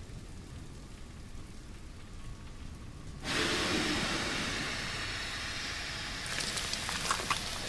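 Anime sound effect of the Colossal Titan's steaming body: a low rumble, then about three seconds in a sudden loud hiss of steam that slowly dies down, with a few sharp crackles near the end.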